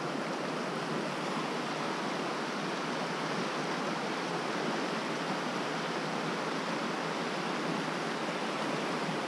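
Mountain trout stream rushing steadily, an even hiss of flowing water.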